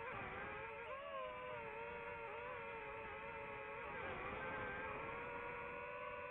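DJI FPV drone's motors and propellers whining steadily in flight, the pitch wavering up and down as the throttle changes.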